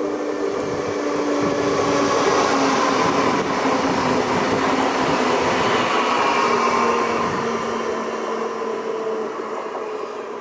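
A Siemens electric multiple unit regional train running past, a steady rush of wheels and running gear with the humming of its electric traction drive, whose tones slowly fall in pitch. It grows louder over the first few seconds and fades near the end.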